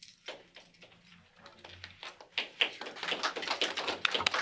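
Scattered hand claps from a small audience, thickening into steady applause about two seconds in.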